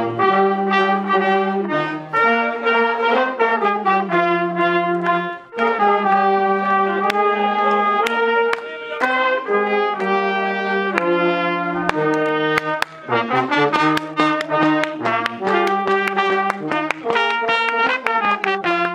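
A band of trumpets, trombones and other brass instruments playing a tune together in held chords, with a short break between phrases about five seconds in and again near twelve seconds.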